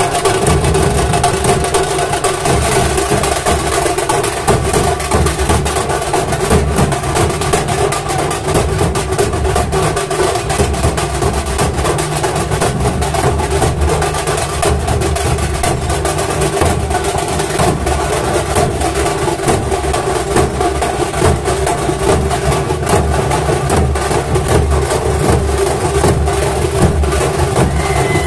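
Massed dhol drums of a dhol pathak drum troupe, beaten hard in a dense, continuous rhythm.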